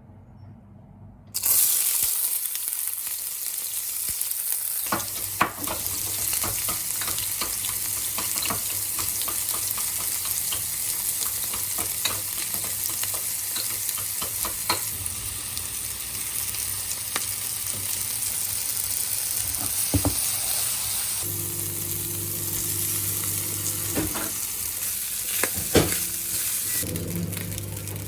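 Vegetable fried rice frying in a hot pan: a loud sizzle starts suddenly about a second in and carries on steadily. It is broken by scattered taps and scrapes of a utensil stirring.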